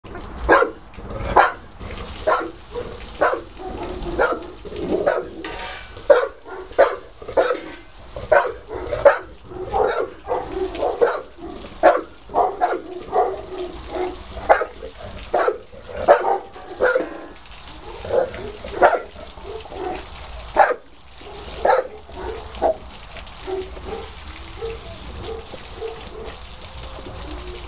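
Dogue de Bordeaux dogs barking and yipping again and again, about once or twice a second, as they bite at a hose's jet of water, the calls thinning out near the end; the hose water splashing faintly underneath.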